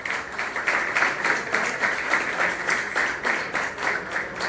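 A roomful of people clapping in unison in a steady rhythm, about four claps a second.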